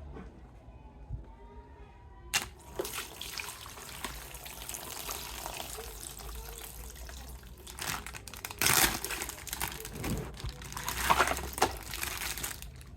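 Plastic packaging crinkling and rustling as a toy action figure is unwrapped by hand. It starts about two and a half seconds in, with louder bursts of crackling a few seconds apart near the end.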